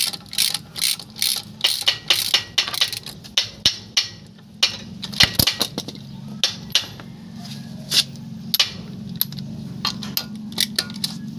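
Metal clicks and clinks of a socket ratchet and lug nuts being worked on a car wheel: a quick, fairly even run of clicks over the first few seconds, then scattered clinks, over a steady low hum.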